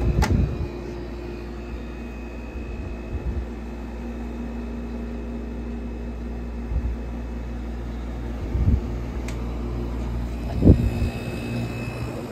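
Vintage Gibson window air conditioner running with a steady hum, its fan on, with a few short low thumps, the loudest about ten and a half seconds in.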